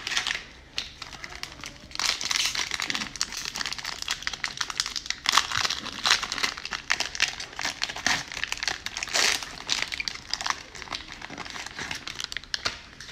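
Plastic cellophane wrapper of a Donruss baseball card cello pack crinkling and crackling as it is handled and torn open. The dense crinkling starts about two seconds in and runs on until just before the end.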